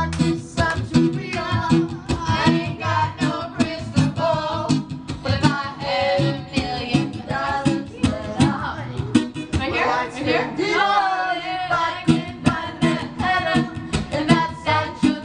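Background song: a voice singing over guitar with a steady beat.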